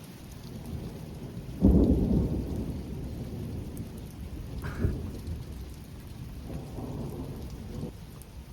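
Thunder from close cloud-to-ground lightning over steady rain. A sudden loud clap comes about two seconds in and rolls on as a low rumble, with a sharper crack just past the middle and a fainter rumble near the end.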